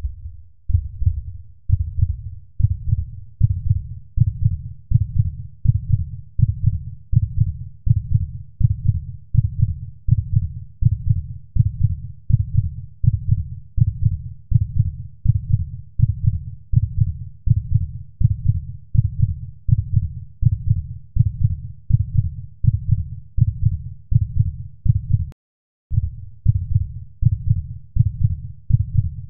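Heartbeat sound: steady, deep lub-dub thumps at about one and a half beats a second, dropping out for a moment near the end.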